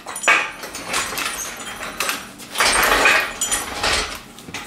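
Steel lifting chains hanging from a hydraulic engine crane's load-leveller jangling and clinking as the crane is moved away from the engine, in several irregular bursts, the longest about three seconds in.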